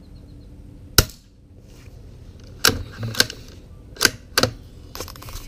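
Suppressed Savage MKII FV-SR .22LR rifle firing one shot of subsonic SK Rifle Match about a second in: a short, sharp crack with no supersonic snap, metered at about 86 dB. It is followed by four sharper mechanical clacks as the bolt is worked.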